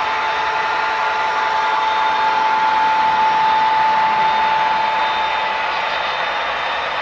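Electric model train running along its track, a steady rolling rumble of the cars' wheels on the rails with a high whine that swells in the middle and then eases.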